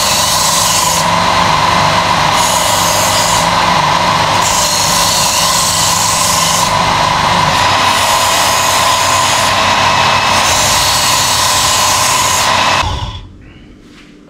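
Ken Onion electric belt knife sharpener running with a steady motor whine. A blade is drawn across the abrasive belt at the 17.5-degree setting in about five strokes, each a loud grinding hiss, with short pauses between them. The sharpener switches off about 13 seconds in.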